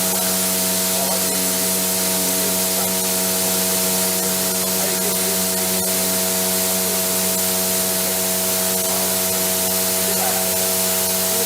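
Lymco SDV-HLA machining centre heavy-milling metal: a steady hum of several pitches from the cutting, under a constant hiss of coolant spray, with faint scattered ticks.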